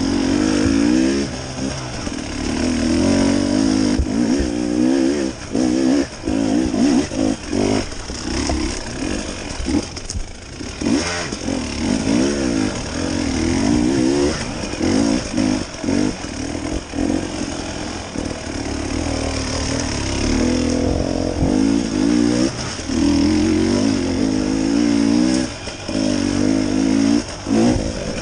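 Dirt bike engine under way on a rough trail, revving up and down as the throttle is opened and rolled off every second or two, with short dips between pulls.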